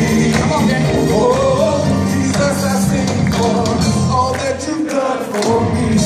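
Live band music with keyboard and drums backing male singers on microphones; the bass briefly drops away about two-thirds of the way through.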